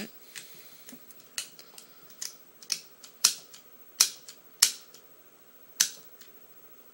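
Plastic parts of a Transformers Decepticon Dropshot action figure clicking and snapping as its weapons are folded away by hand: about eight sharp clicks at uneven intervals.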